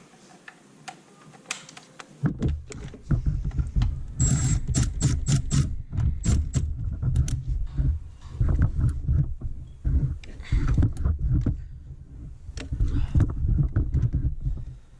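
Hand tools and metal parts clinking and clicking while the belt tensioner is fitted, over irregular low rumbling knocks from about two seconds in.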